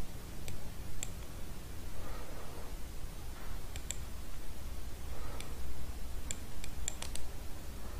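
Computer mouse clicking: single clicks a second or more apart, then a quicker run of about five clicks near the end, over a steady low hum.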